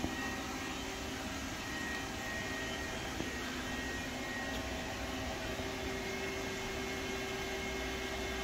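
Steady machine-shop background hum and hiss, with a few faint steady tones over it. The lathe is not yet cutting.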